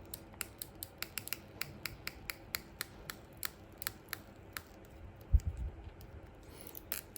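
Stretch-release adhesive strip being pulled out from under an iPhone 6S battery, making a string of sharp, irregular crackling ticks, a few each second. There is a dull knock about five seconds in, and the ticking quickens near the end.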